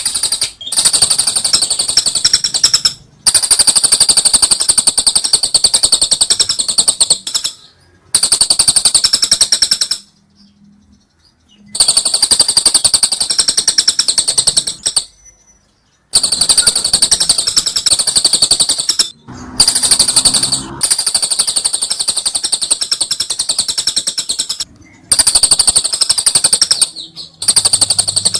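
Lovebird 'ngekek': a long, high chattering trill of very rapid repeated notes, given in bouts of a few seconds each with brief pauses between them.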